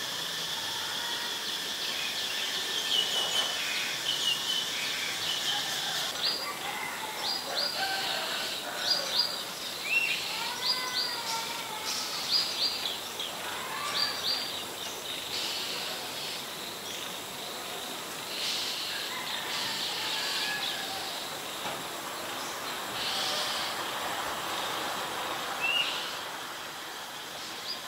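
Several wild birds chirping and calling in woodland, mostly short notes, busiest in the middle, over a steady high insect-like whine in the first few seconds.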